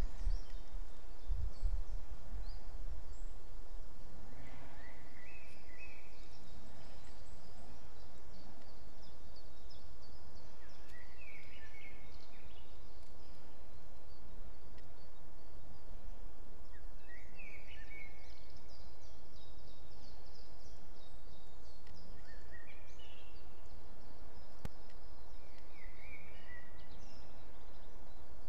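Forest birdsong: a songbird repeats a short phrase about every five or six seconds, with fainter high chirps from other birds, over a steady low rumble.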